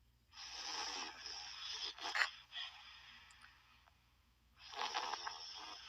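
Snoring sound effect: two long, breathy snores about four seconds apart.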